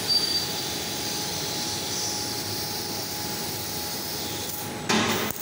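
Laser cutting machine cutting sheet metal: a steady hiss and machine hum with a thin steady tone, and a louder rush of noise near the end that stops abruptly.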